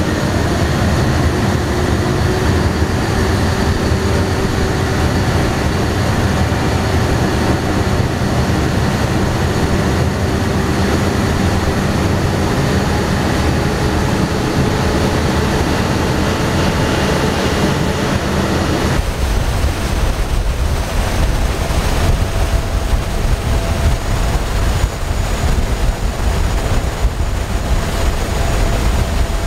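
Passenger ferry under way: steady engine noise mixed with wake water churning behind the stern, the engine note slowly rising as it gathers speed. About two-thirds through the sound shifts abruptly to a deeper, heavier rumble with a steady hum.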